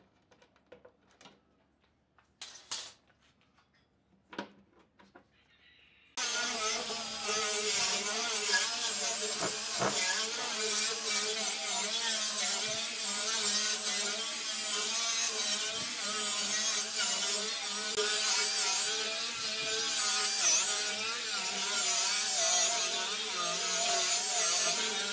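A few short clicks and knocks, as bar clamps are handled on the tabletop. Then, about six seconds in, an electric angle grinder fitted with a sanding disc comes in abruptly and runs steadily, sanding wooden slats, its whine wavering as the disc is pressed against the wood.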